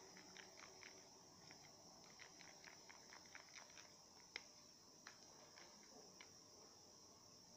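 Faint, irregular soft clicks and squishes of a plastic spoon stirring thick slime in a plastic tub, busy at first and sparser later, with one sharper click about four seconds in. A faint steady high-pitched hiss lies underneath.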